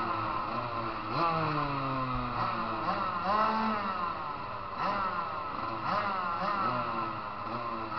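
Several motocross bikes revving on a dirt supercross track, their engine pitch rising and falling again and again, with more than one bike heard at once.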